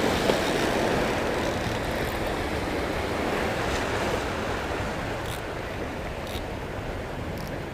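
Small waves washing in and breaking over the boulders of a rock breakwater, a steady rush of surf that eases off slightly toward the end.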